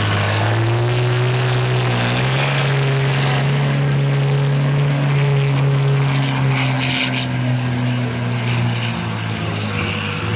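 Pulling tractor's diesel engine running flat out under heavy load as it drags the weight sled, a steady drone whose pitch sags briefly near the start and then holds. It grows a little fainter in the last couple of seconds as the tractor moves away down the track.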